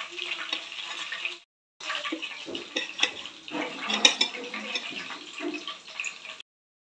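Hot oil sizzling and crackling in a frying pan of shallow-fried fish, with a few sharp clicks of a metal spatula. The sound cuts out briefly about a second and a half in and again near the end.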